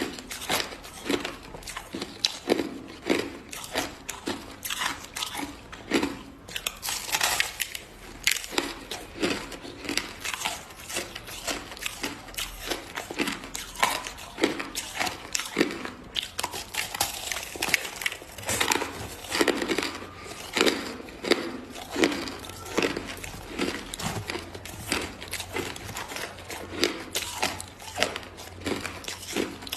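Hard crushed ice being bitten and chewed: a continuous run of crisp crunches that come in quick clusters with brief gaps between bites.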